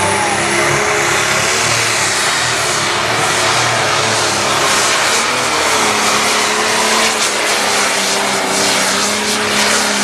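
Light pro stock pulling tractor's diesel engine running flat out under load as it drags a weight-transfer sled, a steady loud drone with a high whistle that fades in the first second.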